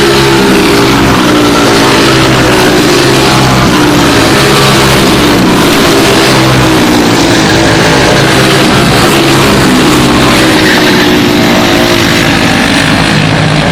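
A pack of four-stroke racing go-karts with Briggs & Stratton Animal single-cylinder engines running at race pace. Several engines overlap, loud and steady, their pitches rising and falling as the karts accelerate and lift.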